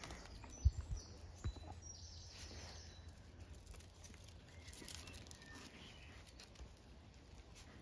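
Faint garden ambience with birds chirping in the background, mostly in the first few seconds. There are two soft knocks about a second in and a low steady rumble underneath.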